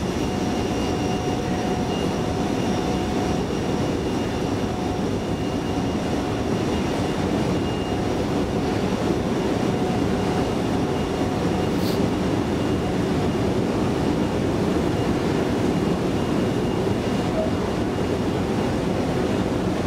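Long metro-station escalator running, heard while riding it: a steady mechanical rumble with a faint whine that fades out about halfway through.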